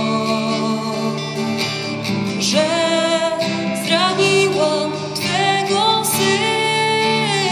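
A devotional song sung with acoustic guitar accompaniment. A voice holds long notes that step upward from about two and a half seconds in.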